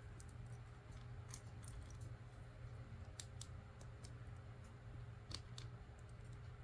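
Faint, scattered clicks of plastic LEGO pieces being handled and fitted together, a few sharp ticks spaced a second or two apart over a low steady hum.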